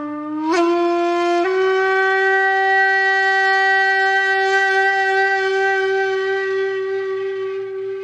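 Music: a breathy wind instrument playing long held notes. It steps up in pitch twice in the first second and a half, then holds one note that slowly fades.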